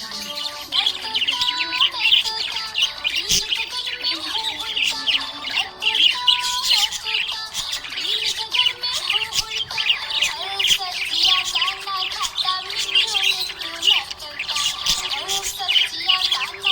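Budgerigar chirping and warbling without pause: a fast, dense stream of high chirps over lower, gliding warbled notes.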